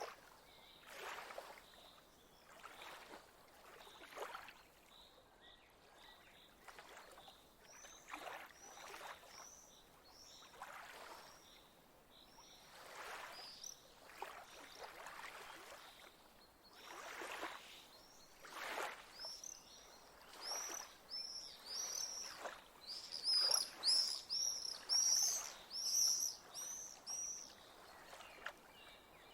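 Lake nature soundscape: small birds chirping in quick series of short high notes, sparse at first and dense and fairly loud over the last third. Faint soft water swishes, like lapping or gentle paddling, come every second or two underneath.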